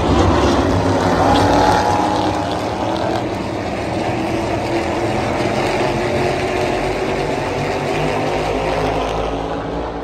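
NASCAR Cup Series stock cars' V8 engines running past in a pack, a loud, dense drone with a pitch that bends up and down, easing off a little after about two seconds and then holding steady.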